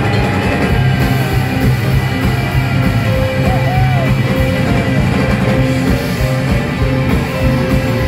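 Live blues-rock band playing through a stage PA: drums, electric guitars and keyboard together in a steady groove.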